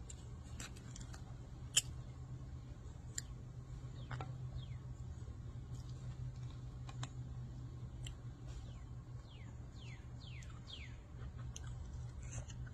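Close eating sounds of fufu and meat eaten by hand: wet chewing and mouth smacks with scattered sharp clicks. A run of short, high falling squeaks comes about nine to eleven seconds in, over a steady low hum.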